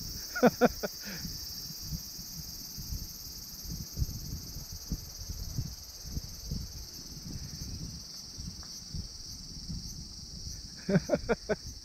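A steady high-pitched cicada chorus, with the irregular footsteps of someone walking down a steep dirt trail. A few sharper scuffs come about half a second in and again near the end.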